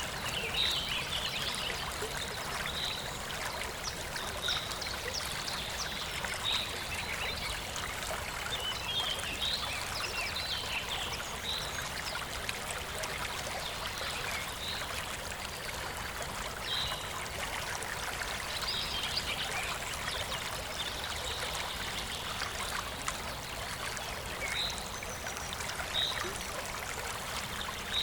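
Nature recording: a steady trickling stream with a small bird chirping over it, a short high call every second or two.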